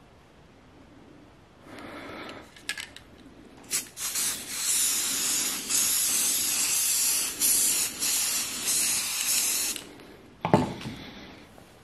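Aerosol spray can spraying for about six seconds, with a few short breaks. A single knock follows near the end.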